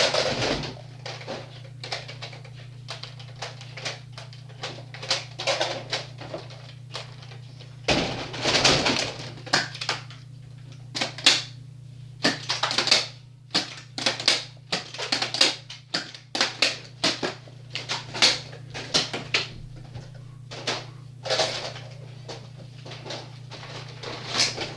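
Irregular plastic clicking and knocking from Nerf blasters being handled and loaded, with a few short, louder rushes of noise, over a steady low hum.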